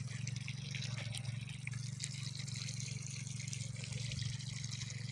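Water trickling and dripping steadily, with a constant low hum underneath.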